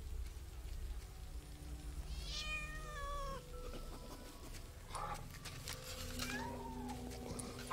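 A kitten meowing: one drawn-out cry about two seconds in and a shorter meow near the end, over a low steady rumble.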